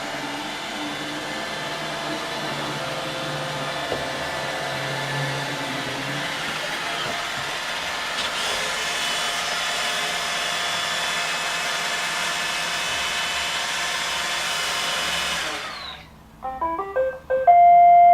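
iRobot Roomba 880 robot vacuum running steadily with a whine from its vacuum motor as it returns to its dock. About sixteen seconds in the motor shuts off and the robot plays a short tune of electronic notes, ending on a held note, as it docks.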